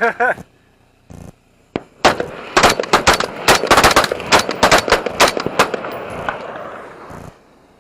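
Several shooters' rifles and pistols firing at once. A few single shots come first, then from about two seconds in there is a rapid, overlapping volley, which thins out near the end.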